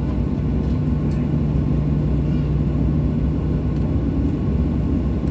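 Steady cabin noise of a Boeing 737-800 in flight: the engines and airflow make an even low rumble with a constant low hum.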